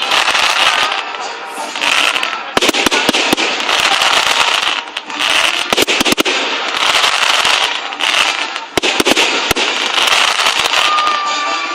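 Fireworks going off in rapid volleys: many sharp bangs and dense crackling that swell and ease several times.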